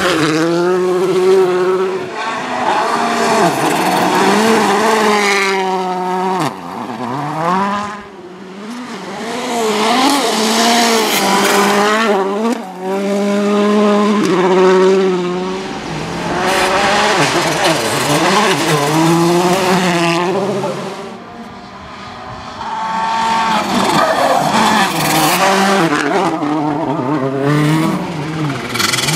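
Volkswagen Polo R WRC's 1.6-litre turbocharged four-cylinder engine revving hard as the car slides through gravel corners, its pitch climbing and falling sharply through gear changes over several passes in a row.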